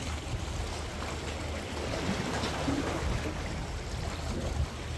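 Small ocean waves washing and splashing against the boulders of a rock breakwater, swelling about two seconds in, over a steady low rumble.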